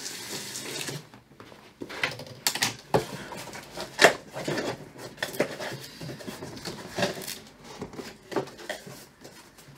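A large cardboard TV box being opened by hand: a rustling scrape for about the first second, then scattered knocks, clicks and rustles of cardboard flaps and packing being handled.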